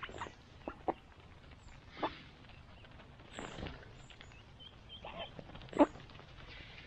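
Mallard ducks feeding in grass right beside the microphone: a handful of short, separate calls and pecking sounds, the loudest about six seconds in.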